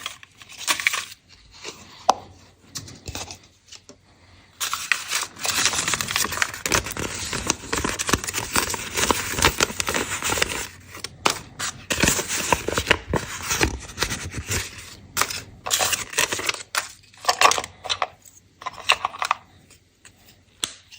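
Candy wrapper being torn and crinkled open. There are a few clicks at first, then dense crinkling from about four seconds in until about sixteen seconds, then a few shorter bursts.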